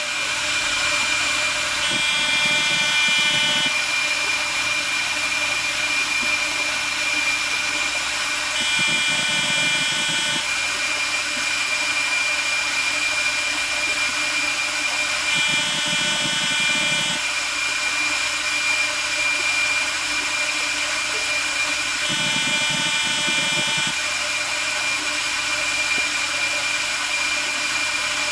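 A CNC bracelet-cutting machine running, with a steady high whine. About every six to seven seconds a higher pitched cutting tone joins in for roughly a second and a half, five times in a regular cycle.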